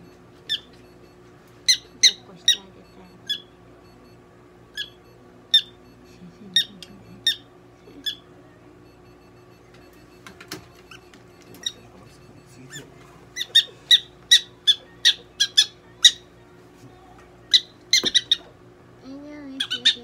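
Prairie dog giving short, sharp, high-pitched barks, scattered at first and then coming in a quicker run of several a second about two-thirds of the way through.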